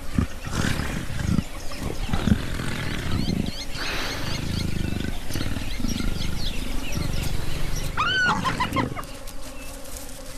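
Leopard and spotted hyenas snarling and growling in a rough, continuous clash over a carcass, with a few high, wavering cries about eight seconds in.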